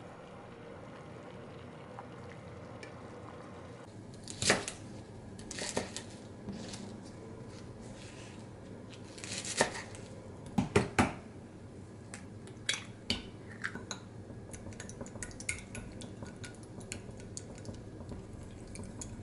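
Kitchen prep sounds: a knife chopping chives on a wooden cutting board, with a few sharp chops (three close together in the middle are the loudest). Near the end come quick light clinks of chopsticks against a glass measuring cup as eggs are beaten.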